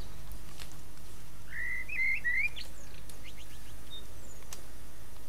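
A bird chirping a short phrase of a few quick gliding notes about two seconds in, with a few faint ticks, over a steady low hum.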